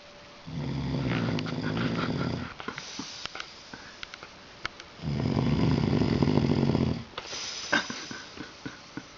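A drunk man snoring in his sleep: two long, low, rattling snores of about two seconds each, roughly five seconds apart, with quieter breathing and small clicks between them.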